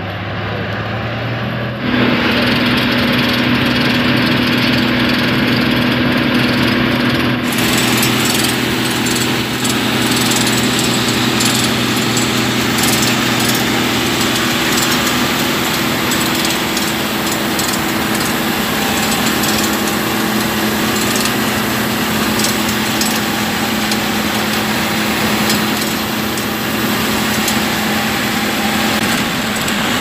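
New Holland 8070 combine harvester running while its unloading auger discharges threshed paddy. A steady machine drone sets in about two seconds in, and a rushing hiss of grain pouring out of the auger spout joins about seven seconds in.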